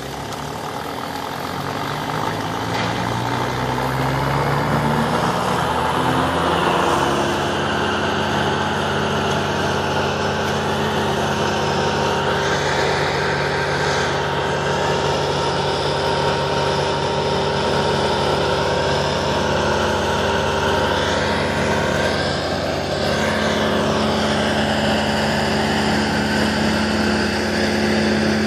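Engine of a truck-towed wood chipper running up to speed over the first several seconds, then running steadily at high speed.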